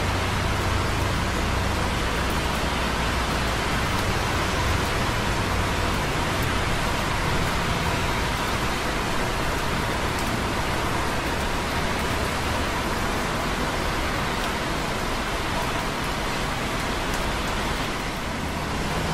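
Light rain dripping on concrete close by, over the steady hiss and low rumble of busy traffic on wet roads far below. The rumble is heavier for the first several seconds.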